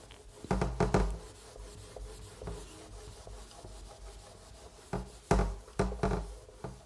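Whiteboard duster rubbing across a whiteboard in quick erasing strokes. The strokes come loudest in a spell about half a second in and again from about five seconds in, with quieter scrubbing between.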